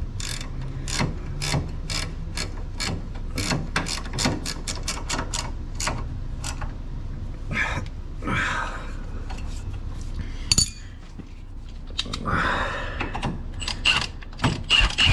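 Hand ratchet wrench clicking in quick, even strokes, about three or four clicks a second. After about seven seconds the ratcheting gives way to scattered metallic clinks and rustling.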